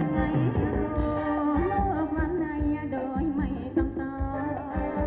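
Live Thai ramwong dance music played through a loudspeaker system: singing over a sustained melody and a steady drum beat.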